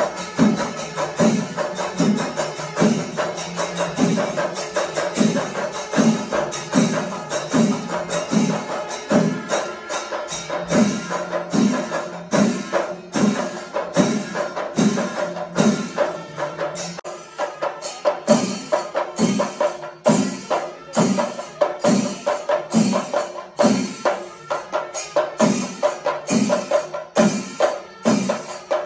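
Chendamelam, the Kerala temple ensemble of chenda drums with ilathalam cymbals, playing a fast, dense rhythm of stick strokes. Deeper drum beats fall regularly, a little more than once a second.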